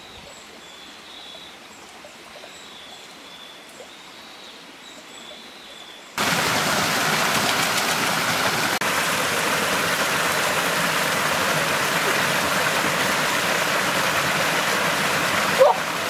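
Faint high chirps over a quiet background, then about six seconds in the loud, steady rush of a small waterfall pouring into a rocky river pool cuts in suddenly and carries on. A short pitched sound comes near the end.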